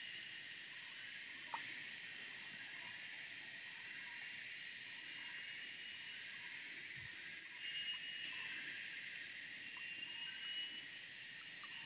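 Steady high-pitched hiss of outdoor background noise, with faint thin steady tones running through it. A single sharp click comes about one and a half seconds in, and a soft low thump about seven seconds in.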